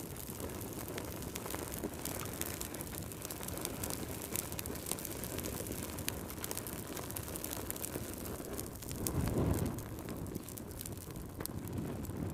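Fire crackling with frequent sharp pops and snaps over a steady low rumble of burning; the low rumble swells briefly about nine seconds in.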